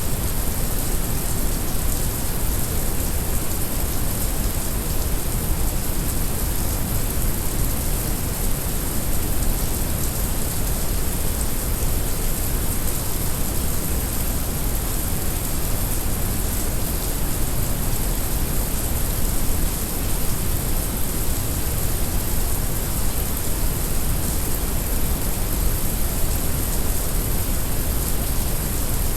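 Heavy rain mixed with brown noise: a steady, even rush of rain hiss over a deep noise rumble, with no breaks or changes.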